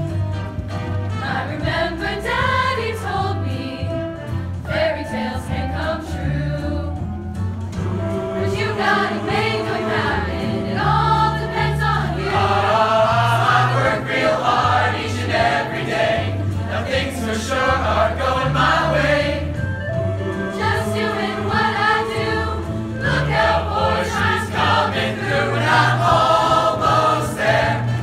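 Mixed-voice chorus singing together over instrumental accompaniment with a steady bass line.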